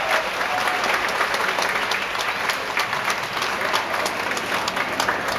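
Church congregation and choir applauding: many hands clapping densely and steadily.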